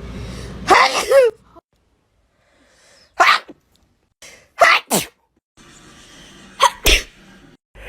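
A woman sneezing repeatedly, about six sneezes in all: a voiced "ah-choo" about a second in, then short, sharp sneezes, two of them in quick pairs near the middle and the end.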